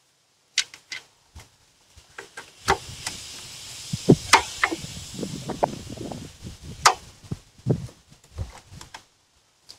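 Hand screwdriver backing out the screws along the top of a plastic front grille: a string of sharp clicks, taps and scrapes of the tool and plastic. A faint steady hiss runs under the middle part.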